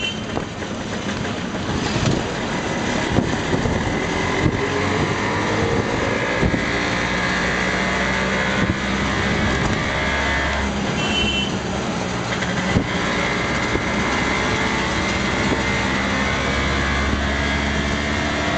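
Auto rickshaw's small engine running under way, heard from the passenger seat, its pitch rising as it picks up speed a few seconds in, with road noise and occasional knocks from bumps.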